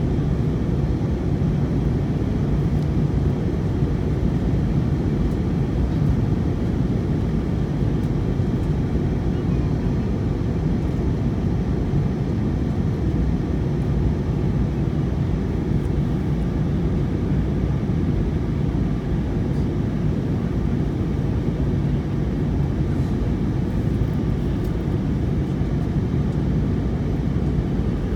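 Airliner cabin noise in flight, heard from a window seat: a steady, deep drone of the jet engines and rushing airflow.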